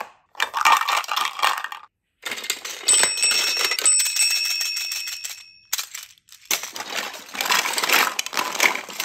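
Hard plastic toys and capsules clattering and rattling under a hand rummaging through them, in several short bursts separated by abrupt silent breaks. A steady high ringing tone sounds for about three seconds in the middle.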